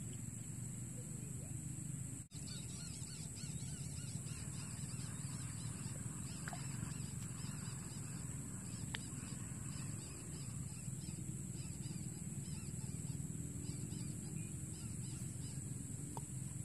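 Outdoor field ambience: animal calls over a steady high insect drone.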